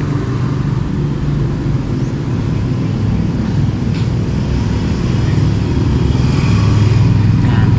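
A motor vehicle's engine running steadily. Its pitch dips and rises about three seconds in, and it grows a little louder near the end.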